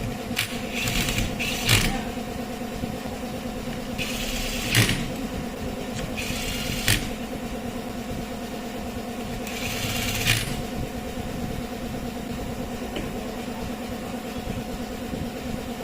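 A cordless hedge trimmer's electric motor running steadily with an even hum. Four short rasping bursts each end in a sharp click, spread through the first ten seconds or so.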